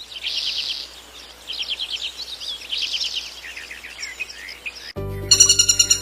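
A songbird singing a few short, fast trilled phrases of high repeated notes. About five seconds in it cuts off, and music with a fast pulsing beat starts.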